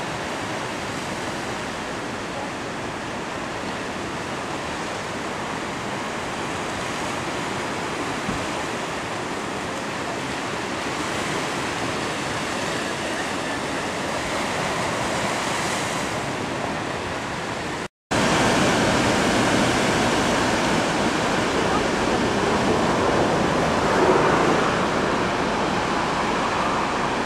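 Surf washing and breaking over coastal rocks, a steady rushing. It cuts out for an instant about eighteen seconds in, then comes back a little louder.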